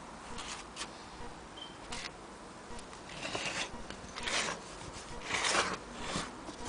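Antique Willcox & Gibbs chain-stitch sewing machine worked by hand at its handwheel: a few light clicks, then several short rasping rubs from the mechanism, the longest about five and a half seconds in.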